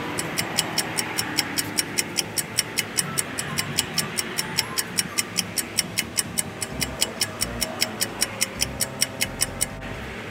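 Rapid, even clock-like ticking, about five ticks a second, that stops shortly before the end, over a steady background hiss.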